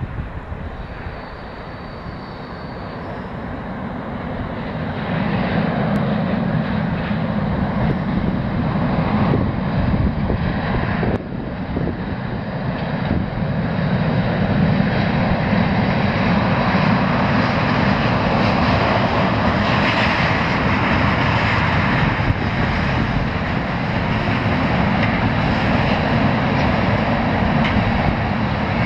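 Two DB class 294 diesel-hydraulic locomotives hauling a 14-wagon ballast train across a steel girder bridge: the locomotives' diesel engines drone steadily together with the wagons' wheels rolling. The sound swells over the first five seconds and then holds loud.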